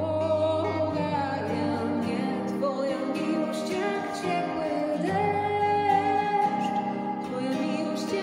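A woman singing into a microphone, holding long notes, with an acoustic guitar accompanying her.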